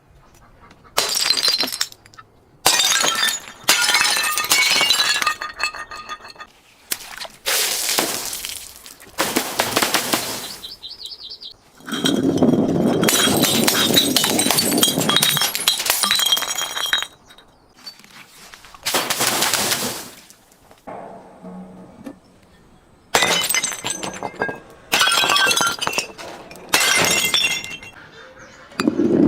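Glass bottles breaking one after another: a string of sharp smashes, each followed by shards crunching and tinkling. About twelve seconds in comes one longer spell of crunching that lasts around five seconds.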